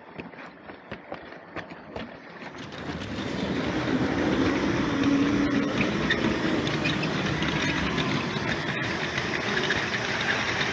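Train running on track: a few irregular clicks for the first two seconds or so, then a louder steady rumbling noise builds and holds.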